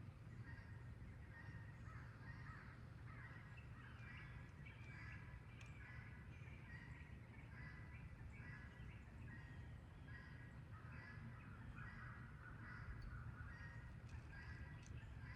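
Faint animal calls repeating about once a second, over a steady low rumble.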